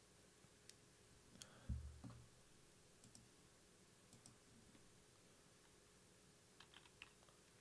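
Faint clicks from a computer input device, a few scattered ones and a quick cluster of three or four near the end, over near-silent room tone. A low thump about two seconds in is the loudest sound.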